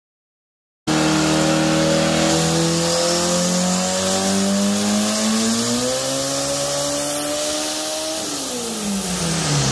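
The 1987 VW Jetta drag car's turbocharged 2.0-litre methanol engine cuts in about a second in and revs up smoothly and steadily for about six seconds, with no gear changes, typical of a dyno pull. Near the end the revs fall away as the throttle is closed.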